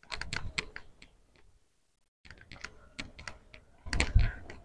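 A quick, irregular run of sharp clicks and taps, several a second, with a short break partway through and a louder low thump near the end.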